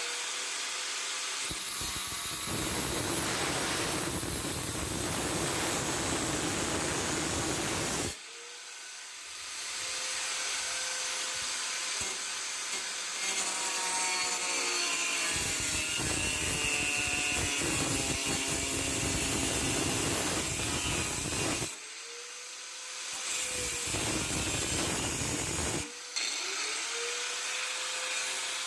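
Angle grinder cutting metal in several passes. Each pass begins with the motor winding up to speed, then a louder rough grinding as the disc bites, at the start and again about 8, 22 and 26 seconds in.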